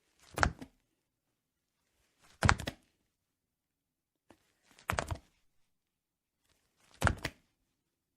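Body-fall sound effects: four separate heavy thuds about two seconds apart, each a body hitting the floor, made of a few quick knocks in a row.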